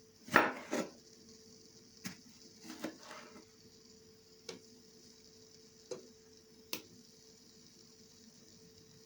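Kitchen utensils and dishes clinking and knocking as food is prepared: about eight separate short taps, the loudest about half a second in.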